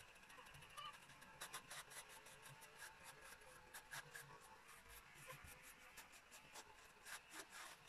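Near silence with faint, irregular scratchy clicks.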